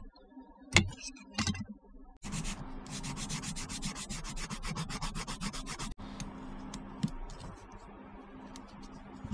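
Sanding stick rubbed quickly back and forth along the edge of a small hard plastic model-kit part, several strokes a second for about four seconds, then fainter rubbing. Two sharp clicks come just before the sanding starts.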